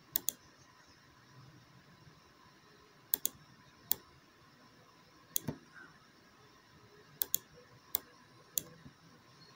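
Computer mouse button clicks while selecting and moving curve points. The clicks are sharp and scattered, a second or two apart, several of them quick double clicks, over faint room hiss.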